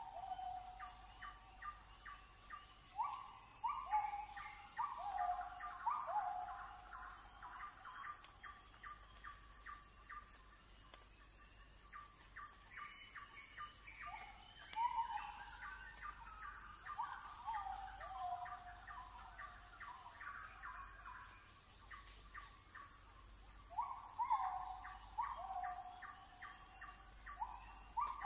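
Birds calling in bouts of several seconds: runs of short notes that each rise and then fall, mixed with quick chirps. A faint steady high insect drone runs underneath.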